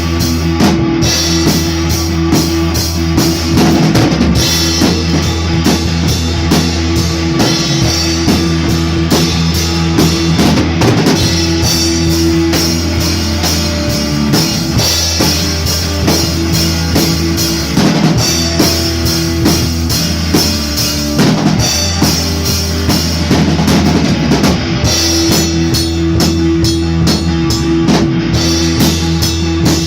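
Rock music with a drum kit keeping a steady beat on bass drum and snare, over sustained bass and chord notes.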